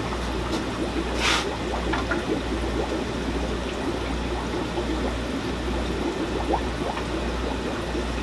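Aquarium water trickling and bubbling, a continuous fine crackle over a low steady hum. A short louder noise comes about a second in.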